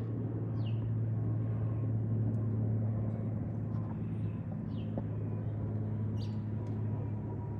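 A bird gives short chirps that slide downward in pitch, one about half a second in and another just before five seconds, over a steady low hum that is the loudest sound throughout.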